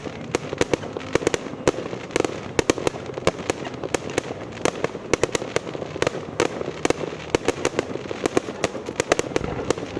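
Fireworks going off: a dense, irregular run of sharp bangs and cracks, several a second, without a break.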